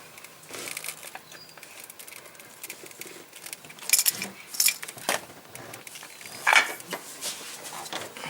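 Scattered light clicks, taps and clinks of a removed fuel injector and other small parts being handled, the loudest about four and six and a half seconds in.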